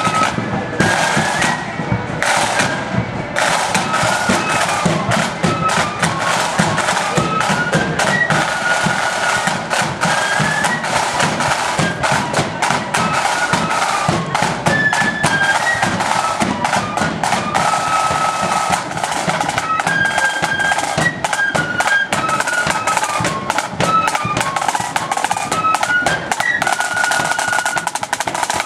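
Marching flute band playing a tune: a high flute melody over snare drums and a bass drum keeping the march beat.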